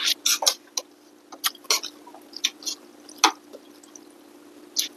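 Eating sounds of rice noodle soup close to the microphone: wet slurping and mouth-smacking in quick, irregular bursts, with one sharper knock a little past three seconds in. A faint steady hum runs underneath.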